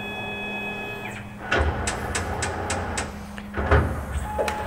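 Tormach CNC lathe changing tools: a steady motor whine stops about a second in, then the tool turret indexes with a run of sharp clicks and two heavy clunks, the louder one near the end.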